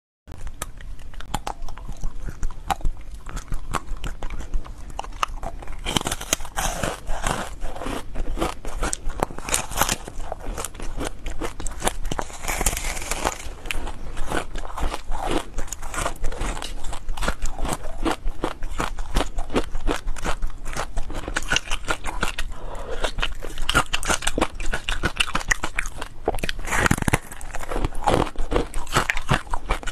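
Frozen foam ice being bitten and chewed, a dense run of crisp crunches and crackles in quick, irregular succession.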